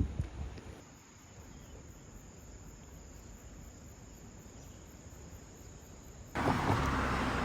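Faint, steady high-pitched insect trilling over a low hiss; about six seconds in it gives way abruptly to a much louder, even rushing noise.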